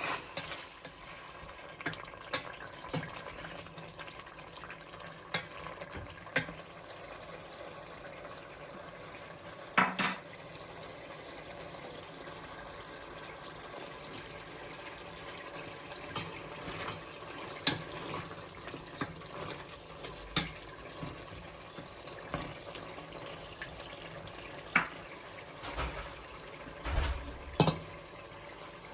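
Cooking sounds: a steady low sizzle with scattered clinks and clatters of a metal utensil against a pot. The loudest clatter comes about ten seconds in, and a cluster comes near the end.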